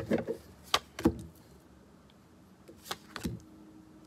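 Tarot cards being drawn from the deck and laid down on a glass tabletop: a few short taps and slides, a cluster near the start and another about three seconds in.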